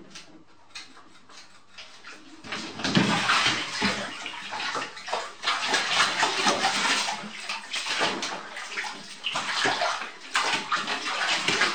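A cat splashing and thrashing in a bathtub full of water, the water sloshing loudly. It starts about two and a half seconds in after a quiet start.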